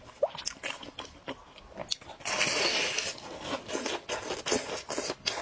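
Close-up crunching and chewing of food, a string of small clicks with a louder, crackly crunch of about a second about two seconds in.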